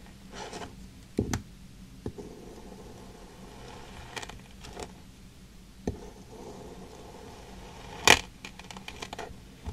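Kinetic sand being cut and pressed with a plastic knife: soft crumbling scrapes broken by scattered sharp clicks, the loudest near the end followed by a quick run of small crackles.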